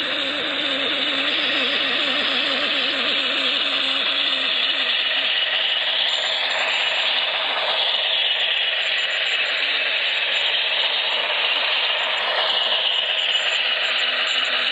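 HO-scale model Baldwin Centipede diesel locomotive and its freight train running along the track, with a steady rattling rush from the wheels and motor. A wavering pitched engine sound rides under it for the first few seconds and fades out about five seconds in.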